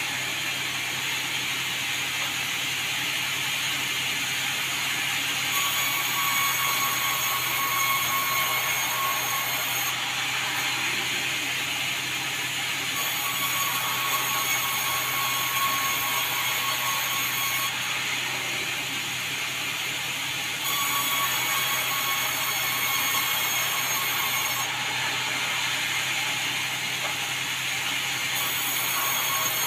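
Sawmill running, its saw cutting red meranti logs into boards. The sound grows louder and sharper for stretches of about three to four seconds, several times over.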